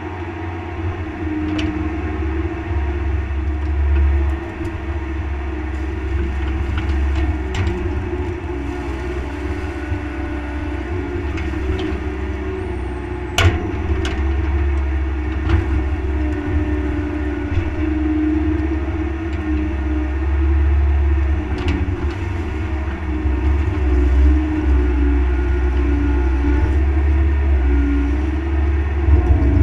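Mini excavator's diesel engine running under working load while the hydraulics swing and work the boom and bucket, its note rising and falling with the load. Now and then the steel bucket and linkage clank, loudest about halfway through.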